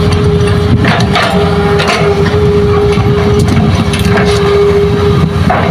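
Hitachi hydraulic excavator's diesel engine running under load with a steady whine, while its bucket digs into rocky fill soil; scattered sharp cracks and knocks of rocks scraping and breaking come through several times.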